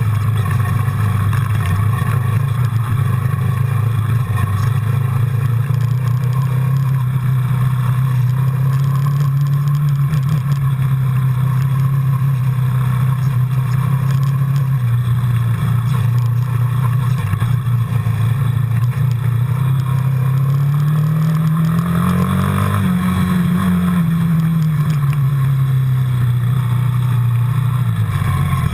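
Quad bike engine running at steady revs, its note rising to a peak about three-quarters of the way through and easing back down near the end.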